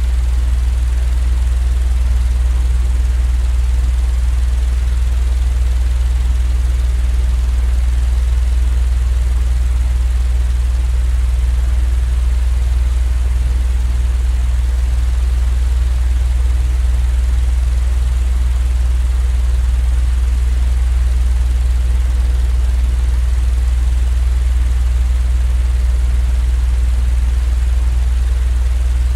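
Continuous white-noise track for sleep: a steady, deep rumbling drone with a faint even hiss over it, unchanging throughout.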